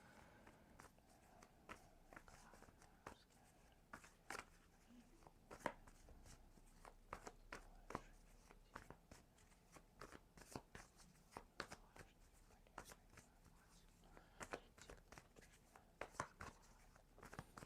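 Faint, irregular soft clicks and snaps of a tarot deck being shuffled and handled by hand.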